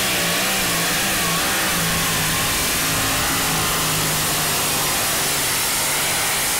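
Supercharged multi-engine modified pulling tractor running at full throttle under load down the pulling track: a loud, steady engine drone whose pitch wavers slightly.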